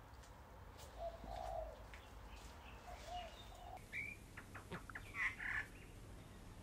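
Soft, low warbling animal calls, twice, then a quick run of higher chirps and clicks between about four and five and a half seconds in.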